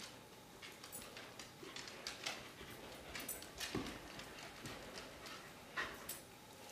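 Small dogs' claws clicking and skittering on a hardwood floor as they play, in irregular quick taps, a few louder ones near the middle and toward the end.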